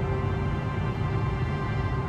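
Background music with long held notes over a dense low band.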